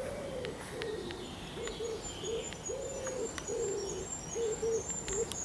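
A pigeon cooing in repeated low phrases, a long note followed by shorter ones, with a small bird singing a run of high, thin, quick notes in the background.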